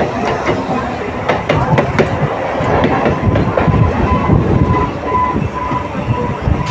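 Suburban EMU local trains running on adjacent tracks: a steady rumble and rush, with a run of quick rail-joint clacks in the first couple of seconds and a thin whine coming and going in the second half.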